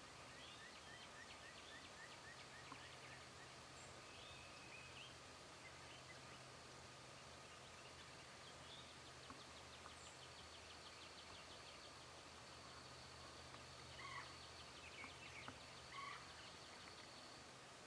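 Wild turkey gobbling faintly twice, about 14 and 16 seconds in, over quiet woods with songbirds chirping and trilling throughout.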